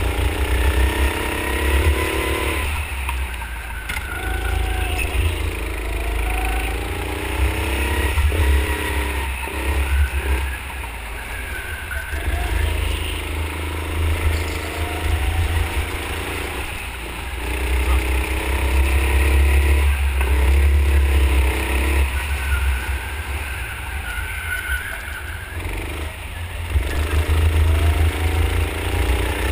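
A 9 HP go-kart engine at full throttle under a heavy low rumble. Its note climbs slowly on each straight and falls away when the throttle is lifted for the corners, several times over.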